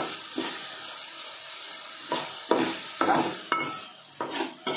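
Chopped onions, carrots and tomatoes sizzling as they fry in oil in a metal pot. A spoon stirs them and scrapes against the pot in irregular strokes.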